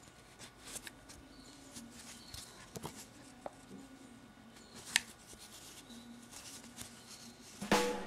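Faint rustling and light clicks of a metal crochet hook working yarn in single crochet, with one sharper click about five seconds in. Music starts to come in right at the end.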